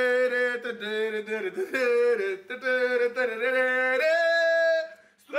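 A man singing with full voice in a run of held, sliding notes, ending on a long higher note that cuts off sharply about five seconds in.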